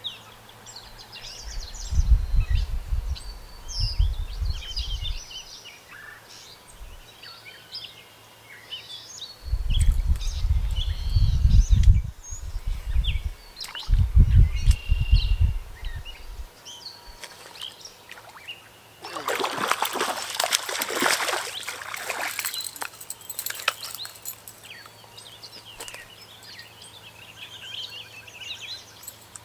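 Songbirds calling on a creek bank, broken by a few spells of deep rumble on the microphone, then a few seconds of water splashing about two-thirds through as a hooked bass thrashes at the surface before it is landed.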